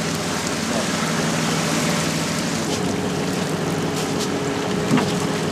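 A fishing boat's engine running steadily under a constant rushing noise. A steady higher hum joins about halfway through, and a brief knock comes near the end.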